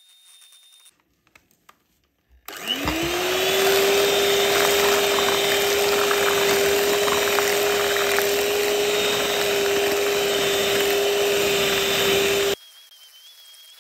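Electric hand mixer switched on a couple of seconds in, its motor whine rising quickly to a steady pitch as the beaters churn flour, cocoa and liquid into cake batter. It runs evenly for about ten seconds and cuts off suddenly near the end.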